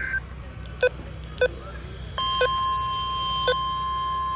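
The NOAA Weather Radio warning alarm tone (1050 Hz) switches on about two seconds in and holds one steady pitch. Before it, the warbling data burst of the SAME header cuts off, and short sharp beeps sound roughly once a second throughout.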